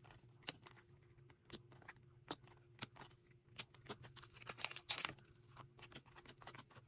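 Photocards being handled and sorted by hand: light, irregular clicks as cards are tapped down onto a table and against each other, with a short stretch of denser sliding and shuffling about five seconds in. Faint, over a low steady hum.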